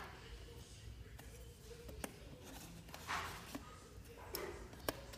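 Small folding knife slitting the plastic shrink-wrap on a tablet box: faint scraping and crinkling of plastic with a few light clicks, with short louder swishes about three and four and a half seconds in.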